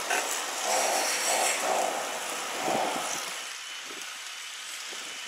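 Level crossing warning alarm sounding in a pulsing tone over a steady hiss. The alarm stops about three seconds in.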